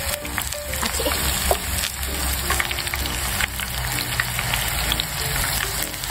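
Hot oil sizzling and crackling steadily as battered fiddlehead ferns (kogomi) and bracken shoots (warabi) deep-fry as tempura in a frying pan, with many small pops. A light background tune plays along.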